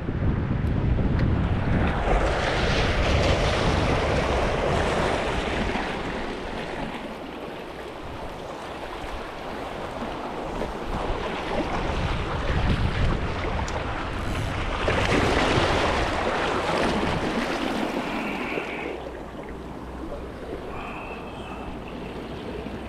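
Waves washing in and drawing back, with two louder surges a few seconds in and just past the middle, and wind rumbling on the microphone.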